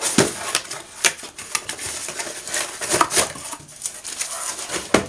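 Cardboard shipping box being opened and handled by hand: flaps pulled open, then the box lifted and tipped, giving a quick run of scrapes, rustles and light knocks.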